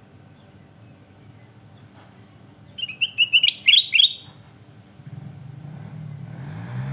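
Kutilang emas bulbul singing one quick phrase of about eight short, bright chirped notes, about three seconds in. A faint steady hum lies under it, and a low rumble builds near the end.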